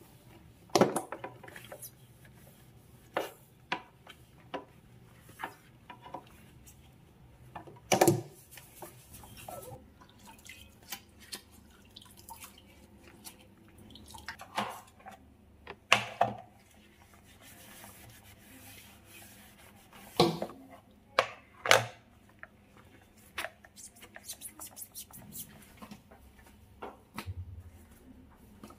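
Kitchen cleaning: scattered clicks and knocks of objects being handled and set down on a stone countertop and a glass-top induction hob, between quieter wiping with a damp cloth. A handful of the knocks stand out as louder.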